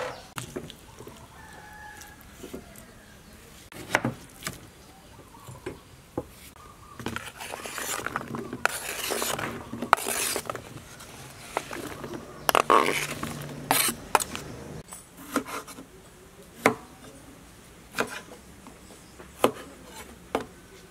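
Cleaver blade knocking on a wooden cutting board in single, irregular chops while vegetables and meat are cut. Partway through there is a few seconds of rustling handling sound.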